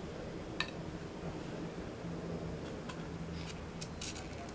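Light clicks and taps from a bamboo dizi flute being handled: one sharp click about half a second in and a quick run of small clicks near the end, over a steady low background hum. No notes are played.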